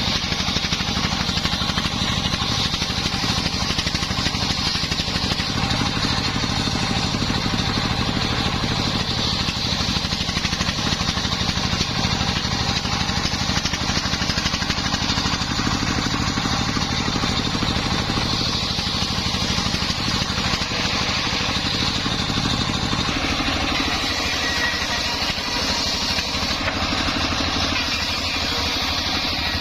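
Engine-driven homemade circular saw running steadily with a continuous motor drone. Its lower note eases somewhat about three-quarters of the way through.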